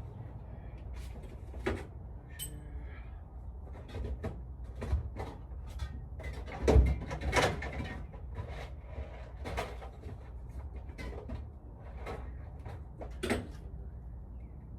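Scattered knocks and clinks of parts and hardware being handled while a new nut and washer are fetched, the loudest cluster about halfway through. A steady low hum runs underneath.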